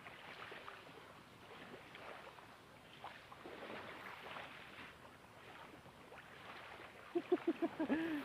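Small waves lapping faintly against a gravel shore, with light wind. Near the end comes a quick run of about six short pitched sounds, the loudest thing here.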